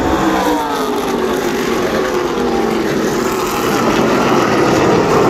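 NASCAR Truck Series race trucks' V8 engines running at racing speed, several at once, their pitch sliding down as they go past.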